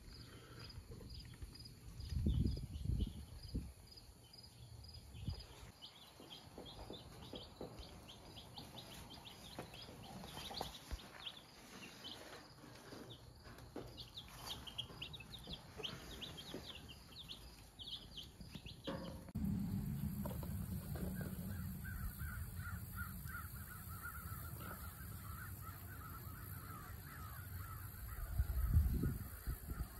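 Chicks peeping: many short, high cheeps. Then, over a steady low rumble, a bird calls in a run of short, evenly repeated notes, and a low thump sounds near the end.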